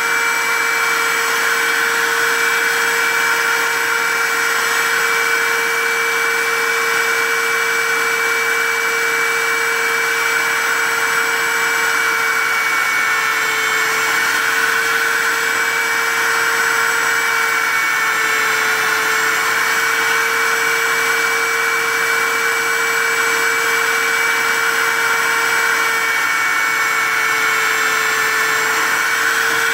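Tensilkut I tensile-sample cutting machine running, its cutter head milling an aluminum strip as the template is fed back and forth past it: a steady high whine with a hum beneath. The pitch sags slightly a few times as the cutter takes the load.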